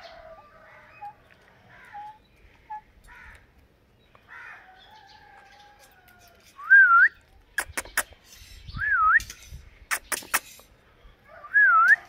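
Indian ringneck parrot making soft, quiet chatter, then three loud whistles a few seconds apart, each a quick wavering glide up, down and up in pitch. Sharp clicks come between the whistles.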